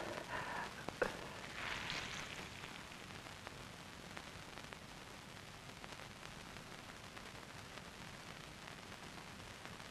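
Faint steady hiss of an old film soundtrack, with a single sharp knock about a second in and a short swish about two seconds in.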